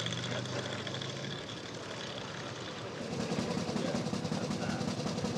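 Veteran motorcycle engines running with a rapid, even firing beat; about three seconds in, the sound changes as a different engine comes to the fore.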